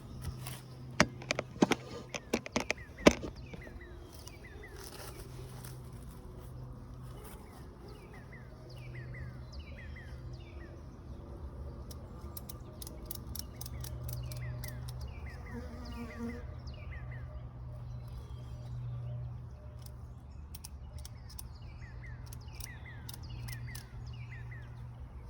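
A few sharp clicks and knocks in the first three seconds. Then a bird sings a long series of short falling chirps over a steady low hum.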